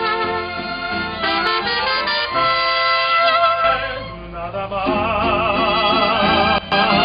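Mariachi band playing: violins carry the melody over strummed guitars and a guitarrón bass line. About five seconds in, the melody takes on a wide vibrato as a singing voice comes in, and the sound drops out for a split second just before the end.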